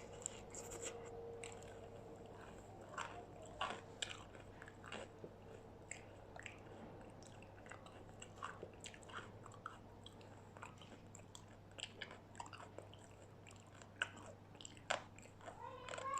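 Close-up chewing and biting of crispy battered fried chicken nuggets and curly fries: a run of irregular crunches, fairly quiet.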